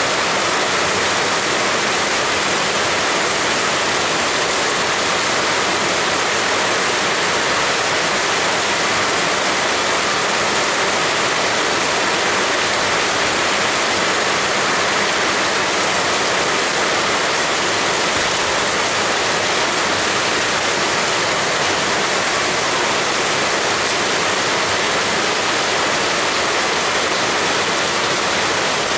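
Heavy rain falling steadily: a dense, even hiss with no breaks or thunderclaps.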